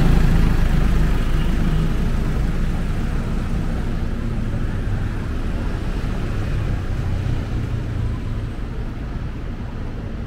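City street traffic: steady engine and tyre noise from passing vehicles, loudest at the start and slowly fading as a nearby vehicle moves away.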